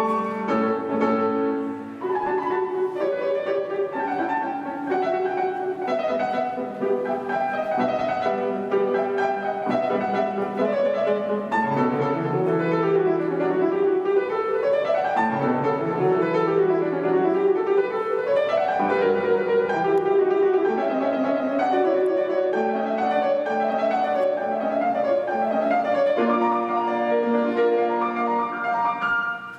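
Solo piano playing classical repertoire: a steady flow of notes with quick scale runs that climb and fall several times midway.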